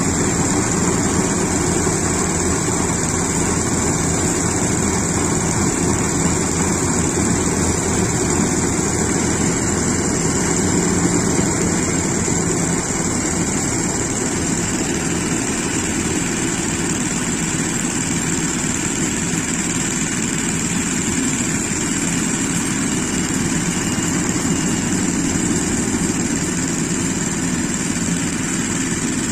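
Iseki HC80P rice combine harvester running steadily as it cuts and threshes standing rice: an even engine drone with a steady high whine on top.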